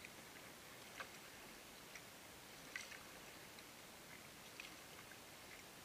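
Faint water sounds of a kayak moving along a river: a low steady hiss with a few soft ticks and drips at irregular moments.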